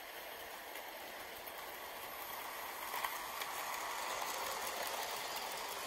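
OO gauge model freight train running along sectional track: a steady rattling whirr of motor and wheels on the rails with faint clicks, growing louder as the wagons come past.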